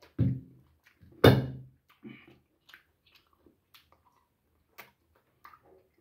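Close-up eating sounds of a man tearing and chewing boiled goat-head meat by hand. There are two short louder sounds, about a quarter-second and just over a second in, the second the loudest, then scattered small mouth clicks and smacks.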